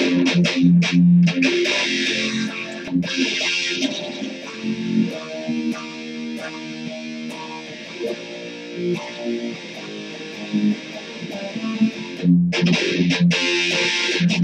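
Solo electric guitar played with a pick: rhythmic strummed chords at first, then quieter held chords and single notes through the middle, and harder strumming again near the end.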